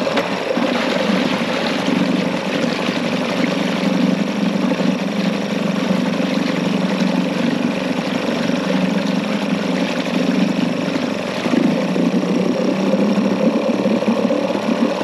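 A 2001 Yamaha 5 hp two-stroke outboard running steadily in a test tank, its exhaust and propeller churning the water. The engine note eases off slightly about ten seconds in and picks up again a little louder about two seconds later.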